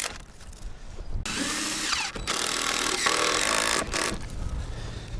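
Power drill driving screws into wooden bracing, in two runs: a short one about a second in that winds down in pitch, then a longer one of about a second and a half.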